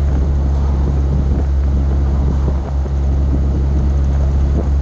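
Triumph Spitfire Mk IV's four-cylinder engine and road noise, a steady low drone at an even cruising speed, holding one pitch.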